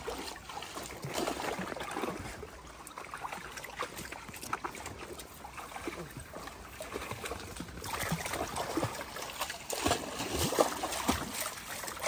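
Shallow river water trickling over rocks, with small irregular splashes of dogs wading in it, a little louder in the second half.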